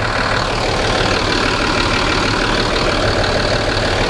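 A bus's four-cylinder diesel engine idling steadily, heard loud and close through the open engine cover inside the cabin.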